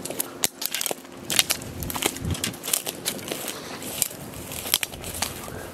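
Footsteps pushing through dry, overgrown vegetation, with irregular crunching and snapping of stems and twigs.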